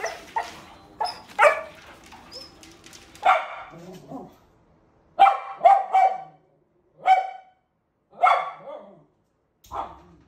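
Dog barking in short, sharp barks: a few fainter ones early, then a quick run of three about five seconds in, followed by single barks about a second apart.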